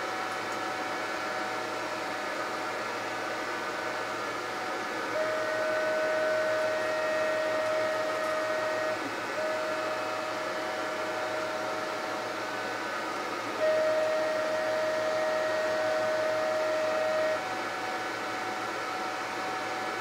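Stepper motors of an xTool D1 laser engraver whining as the laser head travels the long sides of a large square frame. The whine is steady and comes in three stretches of about four seconds each, over a steady background hum.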